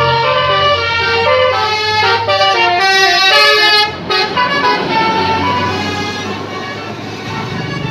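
Bus 'telolet' multi-tone musical air horn playing a quick tune of stepping notes over the bus's engine running. The tune is loudest a little past three seconds in and fades out around six seconds in, leaving the engine and road noise.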